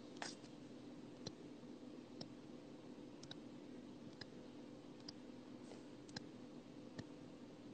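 Near silence with a low steady hum and faint, sharp clicks about once a second.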